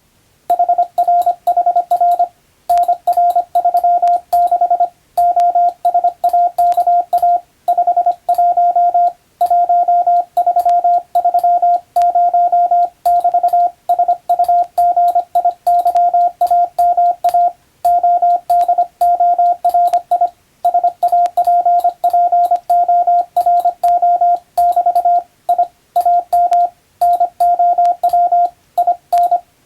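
Morse code (CW) practice tone: a single steady pitch keyed on and off in quick dots and dashes, with short pauses between words.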